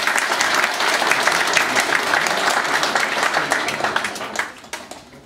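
Audience applauding, a dense spread of clapping that dies away about four and a half seconds in.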